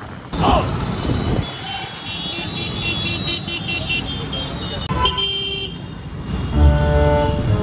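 Street traffic with vehicle horns tooting again and again in short blasts, then a longer horn blast about five seconds in. Background music comes in near the end.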